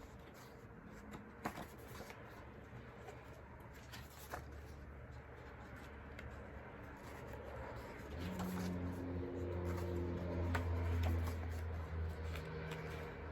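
Quiet handling of paper photos and cards, with a few small clicks and rustles. About eight seconds in, a low steady hum comes up.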